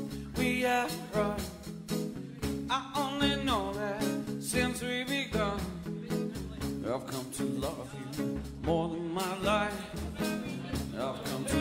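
A band playing a song live, a voice singing over a steady rhythm.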